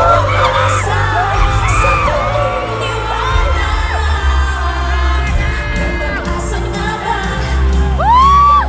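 Live pop music in a large hall: singing over a heavy bass beat, with crowd noise. About eight seconds in, a loud voice sweeps up sharply and holds a high whoop.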